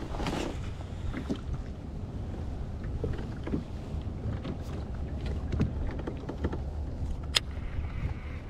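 Fishing from a kayak with a baitcasting rod: a brief swish of the cast at the start, then scattered small clicks and taps from the reel and the rod being handled over a steady low rumble, with one sharp click near the end.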